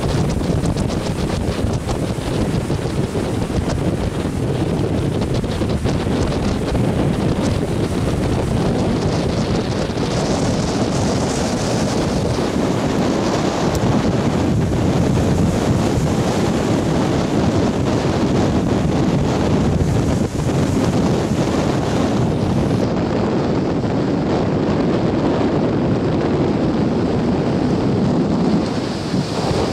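Heavy surf rushing and foaming in around wooden pier pilings, under strong wind buffeting the microphone. The sound stays loud and steady throughout.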